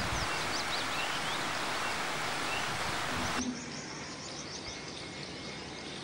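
Outdoor ambience: a steady hiss with small birds chirping briefly. About three and a half seconds in it drops to a quieter background with faint chirps.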